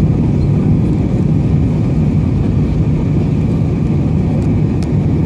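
Steady cabin noise inside an Airbus A320 in flight on approach: a loud, even, low rumble of engines and rushing air, with a faint steady higher hum.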